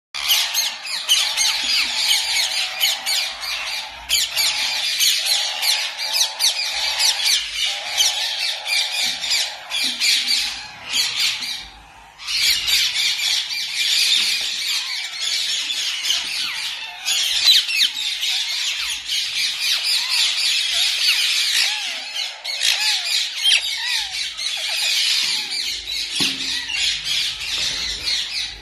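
Many caged breeding birds chirping and squawking together in a dense, continuous chatter, with a short lull about twelve seconds in.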